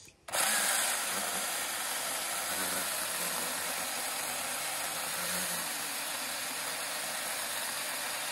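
NaTiddy 6-inch brushless cordless mini chainsaw starting suddenly and running steadily as its chain saws through a limb of hard oak about 4 inches thick.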